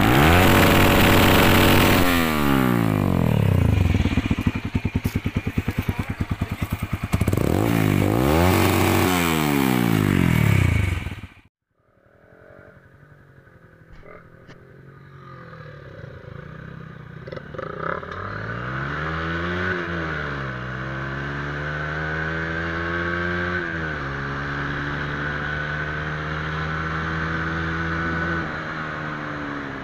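Honda CBR125R's single-cylinder four-stroke engine revved hard again and again through a replica Akrapovic exhaust, the pitch climbing and falling, until it cuts off suddenly. After a short near-silence with a few clicks, the same bike comes back quieter with the dB-killer insert fitted: it revs a couple of times, then runs at a steady note while riding.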